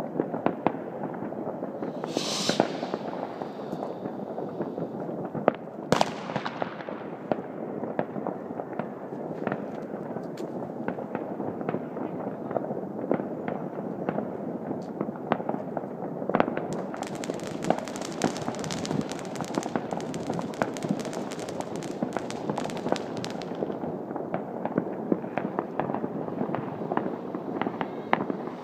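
New Year's Eve fireworks and firecrackers popping and banging without pause all over the town, at many distances. A brief hiss comes about two seconds in, a sharp bang about six seconds in, and a dense crackling from about seventeen to twenty-three seconds.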